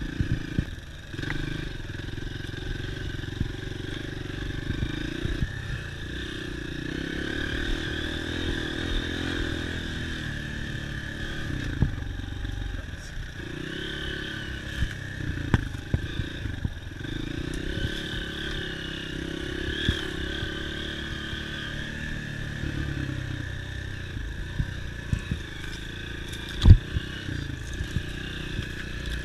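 Dirt bike engine running on a trail ride, its revs rising and falling again and again, with frequent knocks and rattles and one sharp, loud knock near the end.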